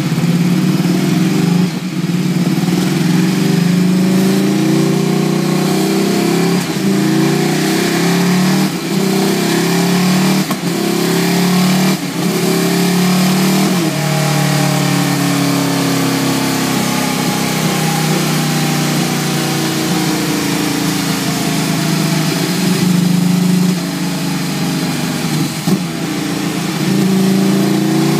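Ducati Streetfighter 848's L-twin engine running hard on a rolling-road dyno through a Termignoni exhaust, its revs rising and falling. Several sharp cracks come with short drops in level as the throttle is snapped shut.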